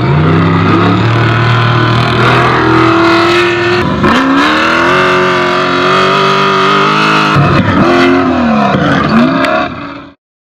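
Off-road race vehicle's engine under hard acceleration, its pitch climbing and then dropping sharply twice at the gear changes. Near the end it comes off and back on the throttle a few times, and the sound cuts off suddenly.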